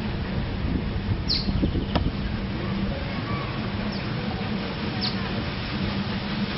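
A steady low mechanical hum, with a few short, high, downward-sweeping bird chirps: one just over a second in, one at about two seconds, and two more around four and five seconds.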